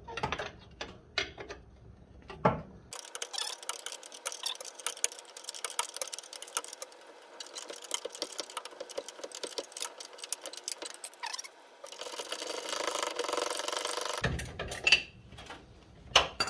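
A few metal tool clanks, then several seconds of rapid, dense metallic clicking as a wrench winds out the top mounting bolt of a front brake caliper. The clicking stops suddenly near the end.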